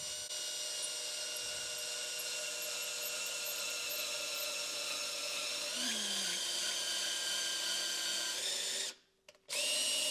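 Handheld power drill whining as it turns a long bit through a drilled hole in a thick acrylic block to smooth the hole's walls. The pitch rises about six seconds in; the drill stops near nine seconds, then starts again briefly near the end.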